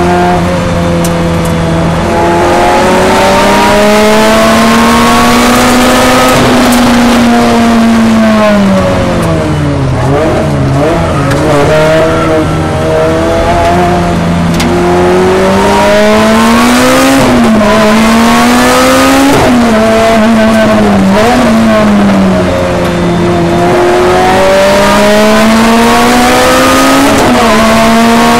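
Lotus Elise race car's four-cylinder engine at full racing effort, heard from inside the cockpit. Its note climbs through the revs and drops sharply at each gear change, then falls low and wavers about ten seconds in before climbing again.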